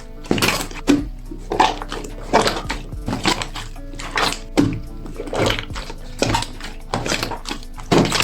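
Thick clear slime being squeezed and poked by hand, giving irregular wet squelches and clicks one or two times a second, over soft background music.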